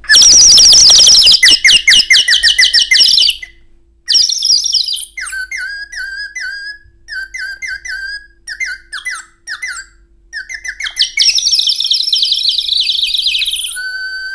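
Small birds' chirping imitated on a blown bird whistle: loud rapid warbling trills, then a run of short separate chirps, then more trilling. It is a foley imitation of sparrows.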